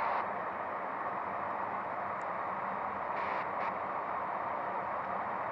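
Steady airflow and engine noise inside a KC-135 Stratotanker's boom operator compartment in flight, heard as an even hiss with a low hum beneath it.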